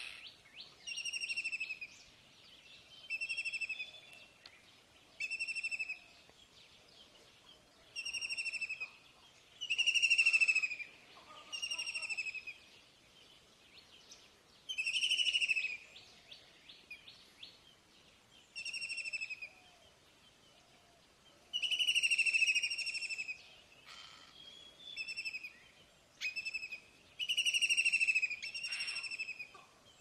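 A songbird repeating a short trilled call about every two seconds, each call a rapid string of notes that drops slightly in pitch.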